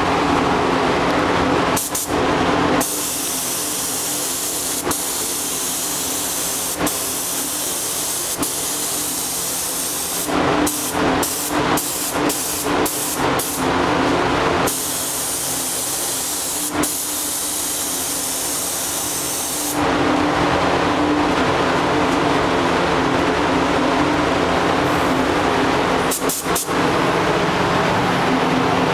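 SATA gravity-feed paint spray gun hissing as compressed air atomises paint onto the car body, the trigger pulled on and off: long passes, a run of short quick bursts midway, then longer passes again. A steady low hum lies under it throughout.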